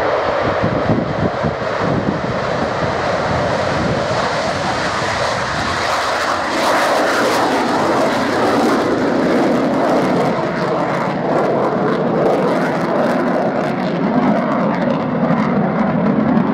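Avro Vulcan's four Rolls-Royce Olympus turbojets at full takeoff power, a continuous loud jet roar through the takeoff roll and climb-out. The sound turns harsher and brighter about six seconds in as the bomber lifts off past the listener, then carries on steadily as it climbs away.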